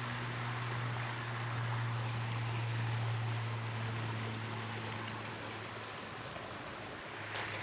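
Steady rushing water of a waterfall, with a steady low hum beneath it.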